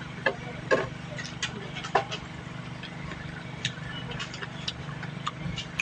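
Eating sounds: about nine irregular sharp clicks and smacks from chewing and handling food, over a steady low hum.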